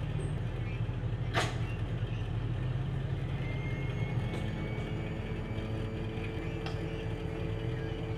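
A tracked armoured vehicle's engine idling as a steady low hum. There is one sharp metallic knock about a second and a half in.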